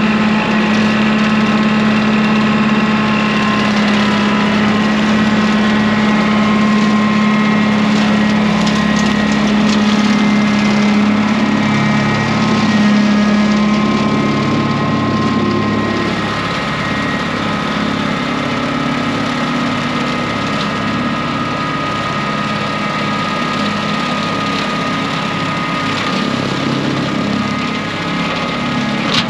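Kubota compact tractor's diesel engine running steadily while driving a rear-mounted rotary cutter through tall ditch grass; the engine hum grows fainter about halfway through as the tractor moves off down the ditch.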